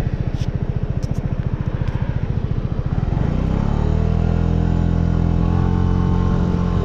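Suzuki Burgman 200 scooter's single-cylinder engine, pulsing at low revs, then picking up about three seconds in and running steadily at higher revs as the scooter accelerates.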